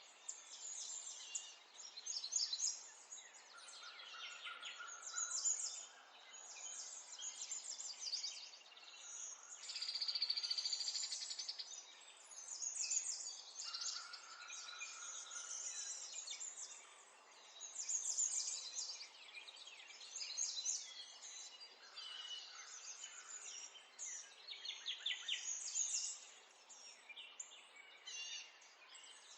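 Several small songbirds chirping and singing in quick, overlapping twittering phrases, with a longer buzzy trill about ten seconds in, over a faint steady background hiss.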